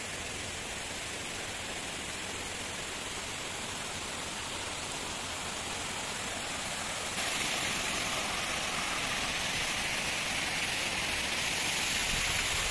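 Small garden waterfall cascading over rocks, a steady rush of falling water that grows louder about seven seconds in.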